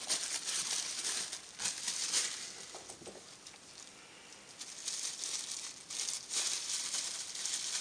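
Bubble wrap crinkling and rustling as it is wrapped by hand around a cordless drill battery's cell pack, quieter for a moment midway.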